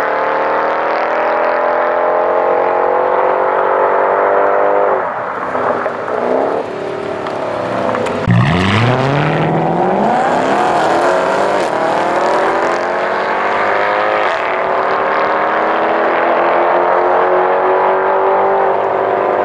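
Mercedes-Benz E63 AMG V8 with an X-pipe and no catalytic converters, accelerating hard: the exhaust note climbs steadily in pitch, drops sharply at upshifts about five and fourteen seconds in, and dips briefly around eight seconds before climbing again.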